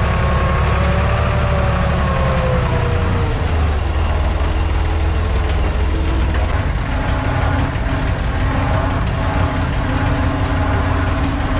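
Tractor diesel engine running, heard from inside the cab while it pulls a disc harrow, with a whine that drops in pitch over the first few seconds before the engine settles to a steady run.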